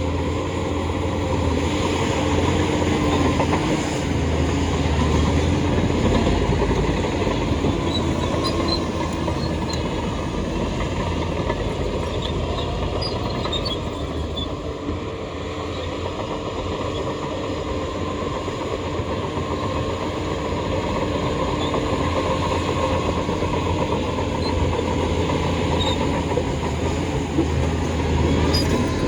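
Shantui crawler bulldozer working, its diesel engine running steadily under the clatter of its steel tracks. A few brief high squeaks come through now and then.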